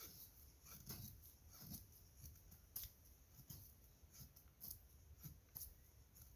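Knife blade shaving curls down a dry stick held upright on the ground, making feather-stick tinder for a fire: a series of faint, irregular scraping strokes.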